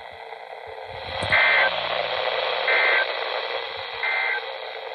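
Three short Emergency Alert System end-of-message data bursts, a harsh two-pitch warble, about a second and a half apart, over steady radio hiss. They signal the end of the alert.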